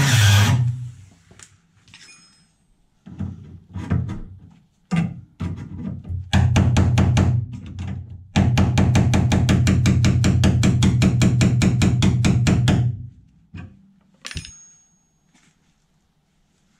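Workshop tool work on steel car body panels: scattered knocks and short bursts, then a loud, even run of rapid impacts, about ten a second, lasting several seconds. A few light knocks near the end carry a brief high metallic ring.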